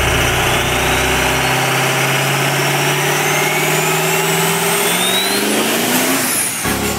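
Sound-effect engine revving up, its pitch climbing steadily for several seconds, with a high whistle rising alongside it; the rise breaks off shortly before the end.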